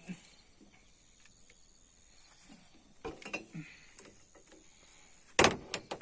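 Steel feeder chain of a combine harvester clinking against pliers as the new chain is joined: a few light clicks about halfway, then a sharp metal clank near the end.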